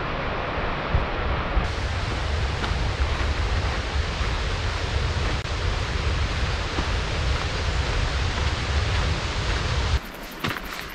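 Wind buffeting the camera's microphone, a steady rushing with a heavy low rumble. About a second before the end it drops away, and footsteps crunch on the dirt and gravel trail.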